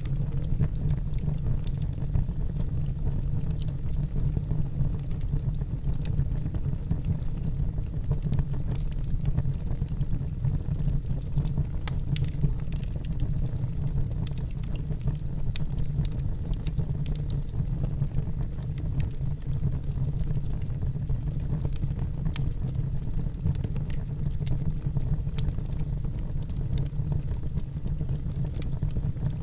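Wood campfire burning: scattered sharp crackles and pops from the burning wood over a steady low rumble.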